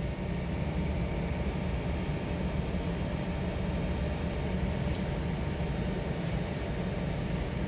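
Steady low mechanical hum with an even hiss: industrial machinery running on a plant floor.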